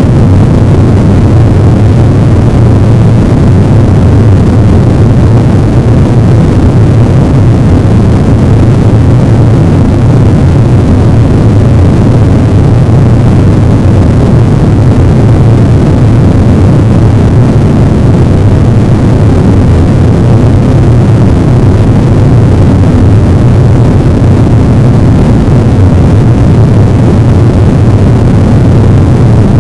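Harsh noise wall: a loud, unchanging wall of dense, rumbling noise, heaviest in the low end, with no rhythm or melody.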